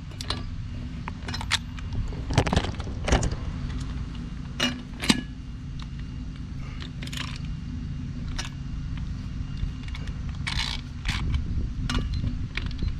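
Metal hand tools clinking: a socket, extension and ratchet with a digital torque adapter handled on trailer lug nuts, in irregular light knocks and clicks. A steady low hum runs underneath.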